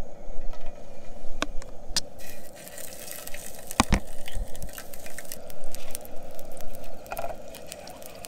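Peeled boiled eggs frying in a little oil in a pan on a portable gas stove: a steady hiss, with metal tongs clicking and scraping against the pan a few times and a louder knock about four seconds in.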